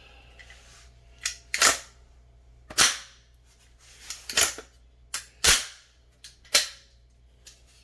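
A gun being handled: about eight sharp, irregularly spaced mechanical clacks and snaps of metal and polymer parts working.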